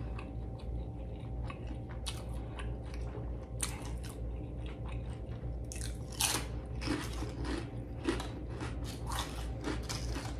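Potato chips being bitten and chewed close to a lapel microphone: irregular crisp crunches, the loudest about six and eight seconds in, over a steady low hum.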